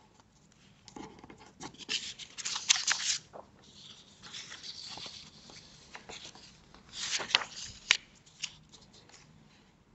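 Sheets of paper rustling as they are handled and turned over. There are two spells of crisp rustling, about a second in and again around seven seconds in, with a softer rustle between.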